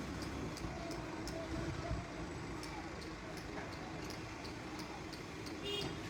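Diesel engine of a Case 770 EX backhoe loader running steadily while it works, with scattered light clicks and knocks.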